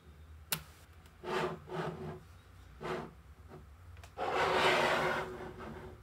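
Small magnetic balls being handled: one sharp click about half a second in, then a few short scraping rubs, and a longer, louder scrape about four seconds in.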